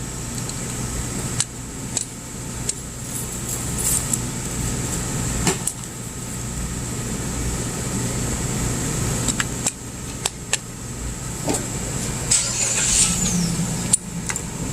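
Steady low mechanical hum from a running motor, with scattered sharp clicks and taps of hands and tools working on electrical wiring, and a brief scratchy rustle near the end.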